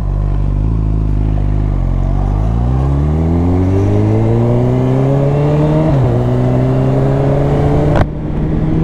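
Honda CB1000R inline-four engine with a Termignoni exhaust running steadily, then pulling away from about two seconds in with a rising pitch. It shifts up about six seconds in, then climbs again. A sharp click comes about eight seconds in.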